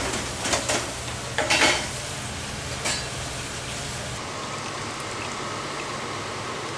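Long metal tongs clacking and scraping as fried snacks are picked from a stainless tray, a few sharp clatters in the first three seconds, the loudest about a second and a half in. Then a steady kitchen hiss.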